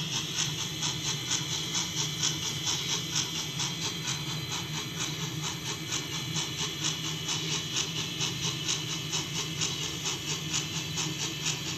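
Model P-B-L Climax geared steam locomotive's sound system chuffing in a fast, even rhythm of hissy exhaust beats over a steady low hum as it runs slowly.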